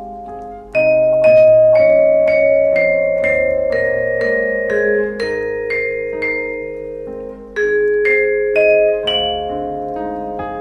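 Vibraphone playing a slow melody: struck notes that ring on, over held lower notes, with one phrase starting about a second in and another near three quarters through.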